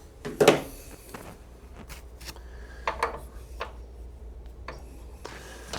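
Metal bike pedals and small parts being handled, clinking and knocking together in a few sharp clicks; the loudest knock comes about half a second in and a short cluster comes about three seconds in.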